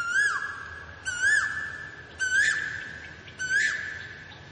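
Asian koel calling: four loud whistled notes, each rising and then dropping, about one a second.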